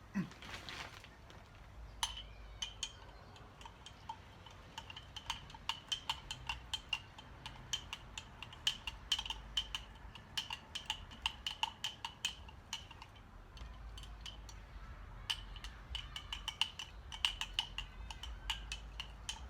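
A spoon clinking repeatedly against the side of a container as it stirs a mixture, several light ringing clicks a second, with a short pause about two-thirds of the way through.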